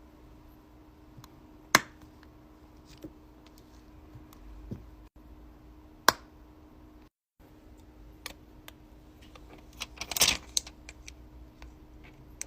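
Sharp clicks, taps and small rattles of hand tools and phone parts on a workbench during an iPhone 5s screen repair: single loud clicks about two and six seconds in and a rattling cluster near the end, over a faint steady hum.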